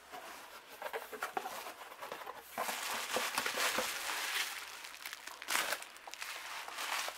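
Cardboard box flaps handled with scattered knocks, then bubble wrap crinkling and rustling in two longer stretches as a bubble-wrapped package is pulled out of the box.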